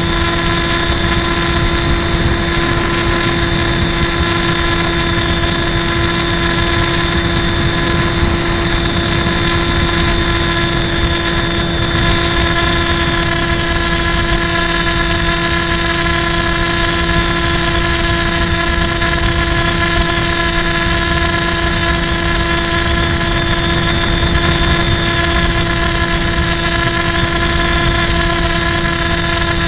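Onboard sound of a radio-controlled FPV model plane in cruising flight: the motor and propeller give a steady whine at one unchanging pitch, over heavy wind rush on the onboard camera's microphone.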